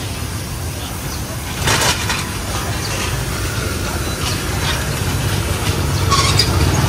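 Street traffic: a steady low engine rumble, with a few short clatters.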